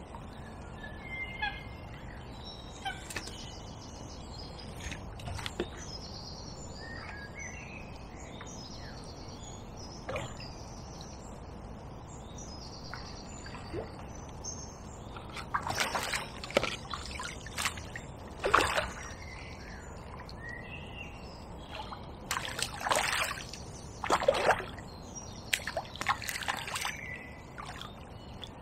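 Hooked tench splashing and thrashing at the surface as it is played close to the bank, several splashes in the second half. Small birds chirp and sing throughout.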